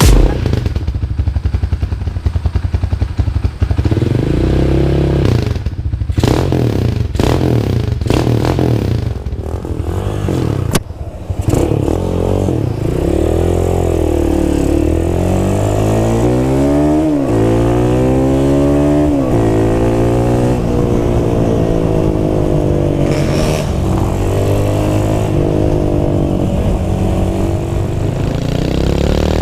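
Rusi Classic 250 motorcycle engine running through an aftermarket Akrapovic exhaust. It idles, then is revved again and again with the throttle, the pitch rising and falling. Several sharp clicks come in the first ten seconds or so.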